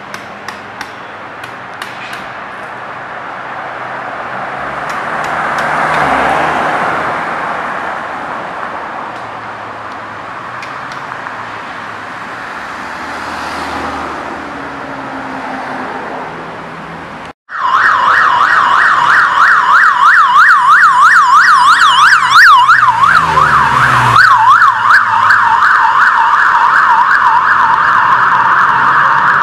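Street traffic noise that swells twice as vehicles pass, then after an abrupt cut a loud electronic emergency-vehicle siren on a fast warble, sweeping up and down several times a second; for a few seconds a second, higher siren warbles over it.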